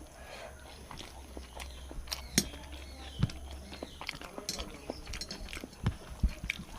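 Close-up eating sounds: chewing, with scattered sharp clicks and smacks of the mouth and fingers as a rice and fish-curry meal is eaten by hand.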